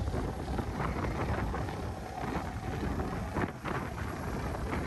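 Wind buffeting the microphone, with a steady low rumble underneath.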